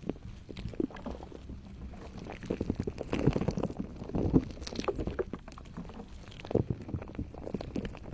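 Slime being squished and pressed by hand: irregular wet squelches and small sticky pops and clicks.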